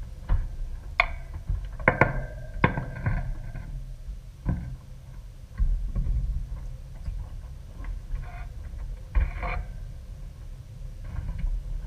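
Scattered small clicks and knocks of hands handling wires and spade connectors at an air-conditioner capacitor's terminals, over a steady low rumble.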